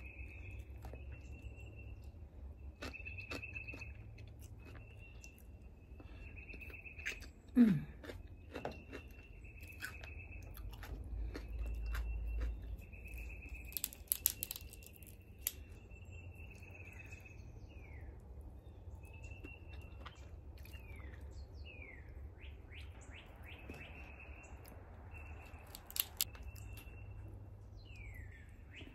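Songbirds singing: a clear whistled note repeated about once a second, giving way in the second half to falling slurred whistles, one quick run of them. Over this come the clicks and crunches of crab shell being cracked and food being chewed, and one brief loud low falling sound about eight seconds in.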